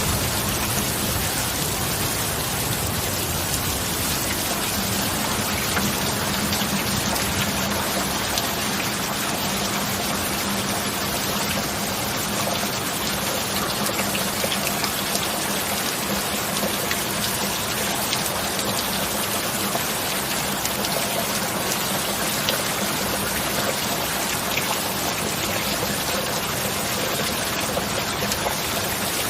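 Steady heavy rain, a dense even hiss with many fine drop patters and no thunder.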